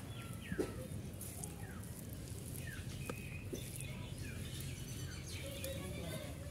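Small birds chirping, short falling calls repeated about once a second over a steady low background rumble, with a couple of light clicks.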